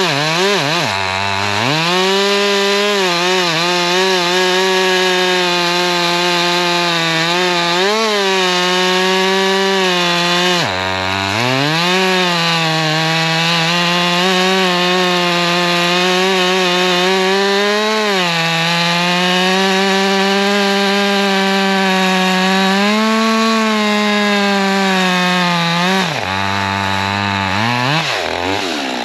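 Husqvarna two-stroke chainsaw running near full throttle while cutting firewood, its steady high note sagging and wavering under load. The engine note drops low and climbs back about a second in, again around eleven seconds in, and twice near the end.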